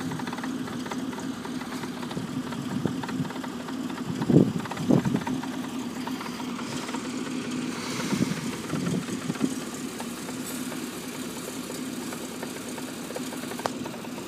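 UAZ-469 off-roader's engine idling steadily, with a few short louder bursts about four to five seconds in and again around eight to nine seconds.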